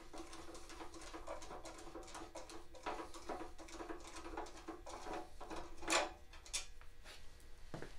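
Faint clicks and light metallic scrapes of a screwdriver backing out the screws that hold the throttle cable and handle in a Snapper mower's sheet-metal front frame, with a louder click about six seconds in. A faint steady hum runs underneath.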